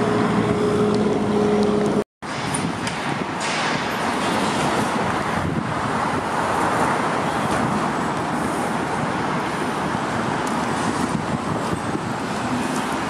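Steady city street traffic noise. A steady low two-note hum runs over it for the first two seconds, then the sound cuts out for a moment.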